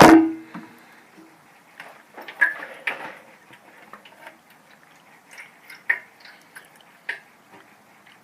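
Starter cranking of a 1989 Suzuki GSX-R750 motorcycle cuts off right at the start, its whine dying away within about half a second without the engine catching. After that there are only faint, scattered clicks and ticks.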